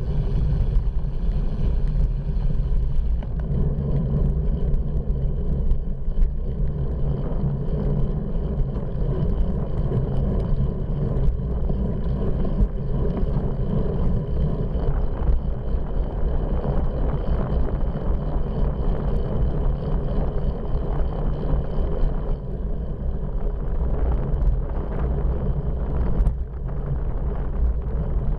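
Steady low rumble of wind buffeting a bicycle-mounted camera's microphone while riding, with road noise underneath and a brief dip near the end.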